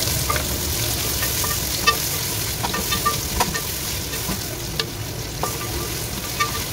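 Sliced onions sizzling as they fry in hot oil in a metal pot, stirred with a spoon, with scattered clicks of the spoon against the pot.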